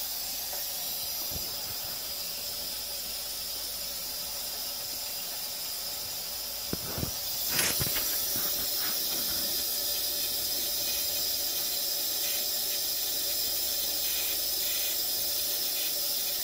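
A steady high hiss, with a short cluster of knocks and clicks a little after the middle as a hand-held camera is handled and moved.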